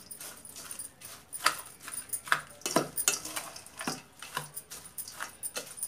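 A metal spoon scraping and clinking against a steel bowl while tossing a dry, crunchy mix of flattened rice (chivda) and sev, in irregular strokes.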